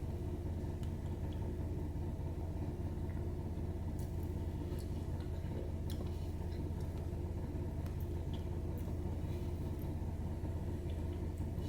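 Steady low hum, with a few faint clicks and taps.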